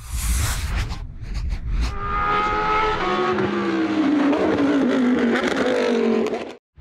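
Logo-intro sound effect of a race car: a loud rushing burst, then an engine note whose pitch falls steadily over the last few seconds, cut off abruptly just before the end.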